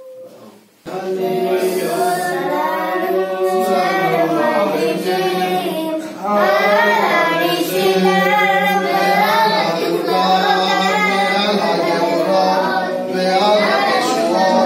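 A group of men and boys singing a Hanukkah song together, starting about a second in and carrying on steadily.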